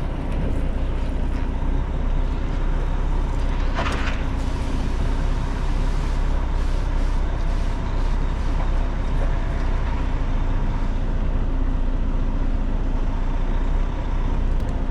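Lorry's diesel engine running steadily during slow manoeuvring, with a short hiss of air about four seconds in.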